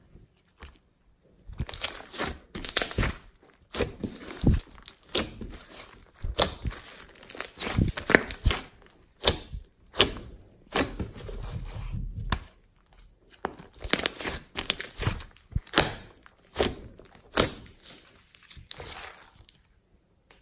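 Slime being kneaded and pressed by hand, making a dense, irregular run of crackling pops and squishes with short pauses between handfuls.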